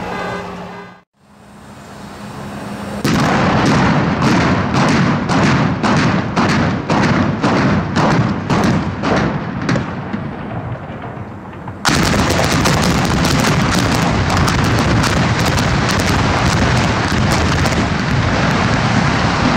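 Explosives demolition of a 17-story structural steel building: a regular series of sharp detonations, about two a second and slowly fading. About twelve seconds in comes a sudden, much louder and denser run of blasts, running into the steady rumble of the structure collapsing.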